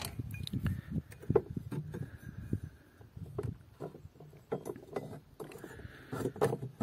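Irregular metal knocks and clicks as a steel battery clamping plate is handled and fitted into place over a car battery.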